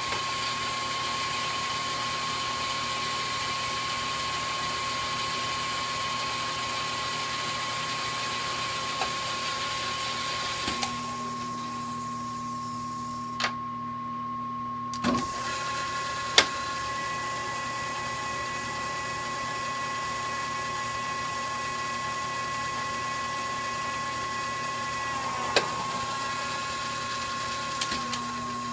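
South Bend 10 engine lathe running under its electric motor with a steady mechanical whine. Its tone pattern shifts about eleven seconds in and shifts back near the end, with a few sharp clicks along the way.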